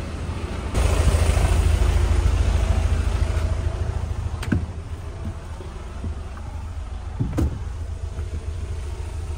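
Shuttle minibus engine running with a low rumble, louder for the first few seconds, with two short knocks about four and a half and seven seconds in.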